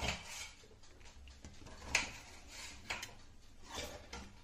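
Faint kitchen handling sounds: a few soft taps and knocks of food and utensils against a ceramic plate, the clearest about two seconds in.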